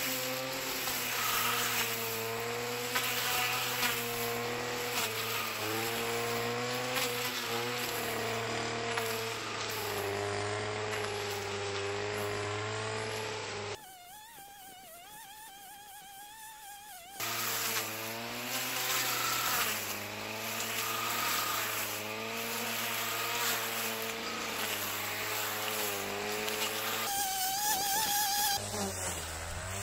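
Stihl FS 460 two-stroke brushcutter with a metal blade, running at high revs while cutting wet, tall grass; its pitch dips and recovers as the blade takes load. About halfway through the sound drops for a few seconds to a quieter, higher steady whine, then the cutting resumes.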